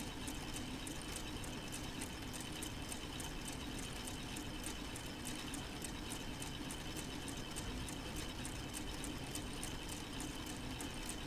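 K'nex plastic model four-cylinder engine running under solar power: its plastic gears and linkages clicking evenly, about three to four times a second, over a steady hum.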